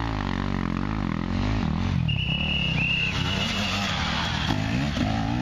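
Dirt bike engine revving up and down repeatedly on a steep dirt climb, its pitch rising and falling with the throttle. A brief high steady tone sounds about two seconds in.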